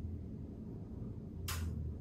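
Therapist's hands pressing and sliding over a patient's leggings and lower back during a manual muscle-release technique, giving one short swish of fabric about one and a half seconds in over a low steady hum.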